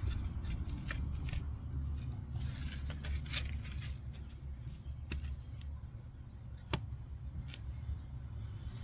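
A wooden form board and a brick being handled and set in place: light scraping and a few sharp knocks, the loudest just before seven seconds in, over a steady low rumble.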